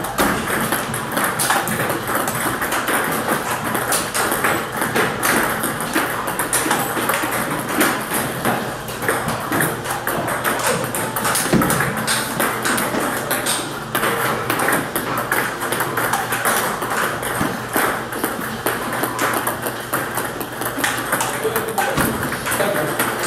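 Table tennis rally: the ball struck by rubber-faced paddles and bouncing on the table, a quick, irregular run of sharp clicks, with more ball clicks from other tables in the hall.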